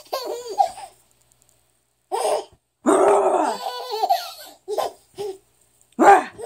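Baby laughing in repeated bursts of belly laughter with short pauses between them; the longest burst comes about three seconds in.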